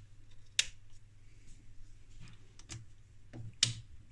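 A handful of sharp, irregular plastic clicks and taps from a hand working an Ole Dich 157MP micro centrifuge, loudest about half a second in and near the end, over a faint steady low hum. The unit answers with no beep: it is dead, which the owner later traces to a broken main power switch.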